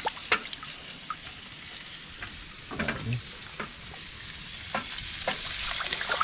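Insects chirping in a steady, high-pitched pulsing trill at about eight pulses a second.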